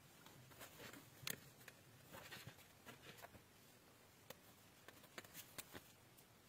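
Faint handling sounds: scattered clicks, taps and soft rustles from the stiff pages of a wipe-clean activity book being turned and a dry-erase marker tapping and writing on the laminated page. The sharpest click comes about a second in.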